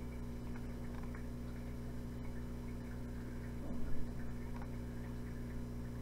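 Steady electrical mains hum, a low buzz with a stack of even overtones, with a few faint ticks and a brief faint sound a little under four seconds in.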